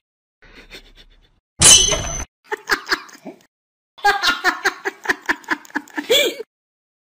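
A person's voice laughing in short rhythmic bursts, cut in pieces, with a sudden loud burst about one and a half seconds in.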